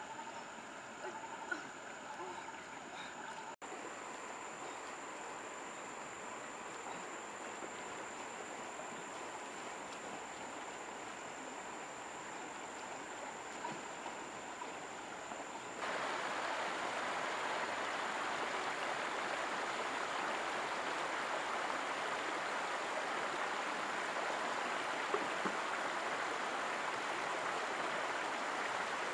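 Shallow river running over stones, a steady rushing and rippling of water that becomes louder and fuller about halfway through.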